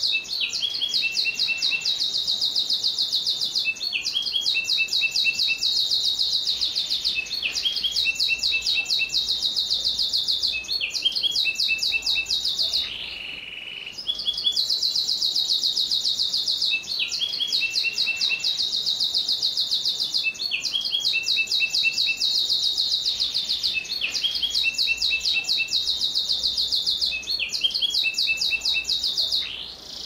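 Domestic canary singing a long, nearly unbroken song of fast, high rolling trills, with one short break about halfway through.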